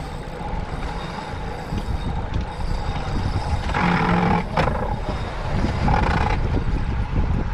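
Wind buffeting the microphone on a small boat at sea: a steady rough rumble, with two brief louder sounds about four and six seconds in.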